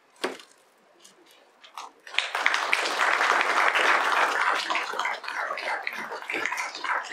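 An audience starts applauding about two seconds in, a dense clapping that eases off a little near the end; before it, only a couple of faint knocks.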